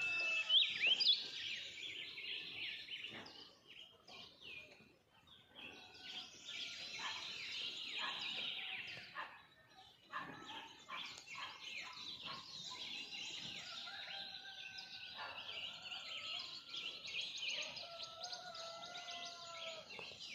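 Birds singing and calling in a faint chorus, many overlapping chirps and trills with a few longer held notes, dropping away briefly about four seconds in and again about ten seconds in.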